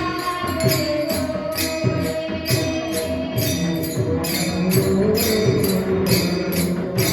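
Marathi kirtan music: a held melody line over drumming, with small metal hand cymbals striking in a steady beat about three times a second.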